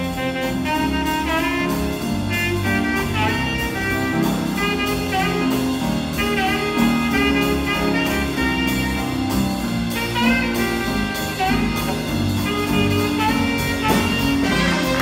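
Live school jazz big band playing: saxophones, trumpets and trombones over a rhythm section, with a melody line of sliding, bending notes.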